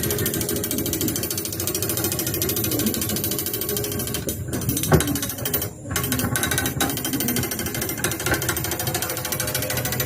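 A fast, continuous rattle of clicks, steady in level, with a brief break about six seconds in.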